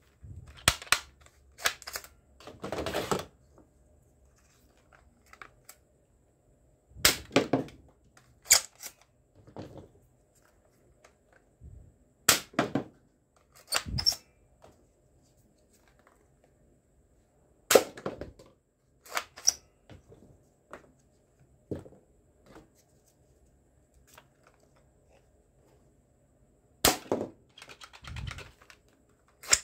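Sharp plastic clicks and clacks from a plastic toy pistol being handled and worked, coming in scattered groups several seconds apart, some with a short rattle.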